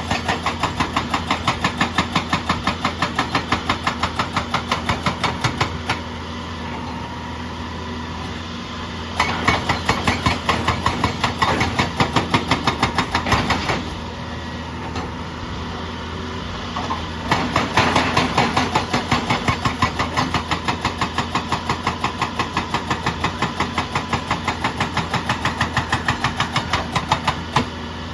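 Excavator-mounted hydraulic breaker hammering in three runs of rapid, evenly spaced blows. Between the runs, for a few seconds each, the excavator's diesel engine runs steadily.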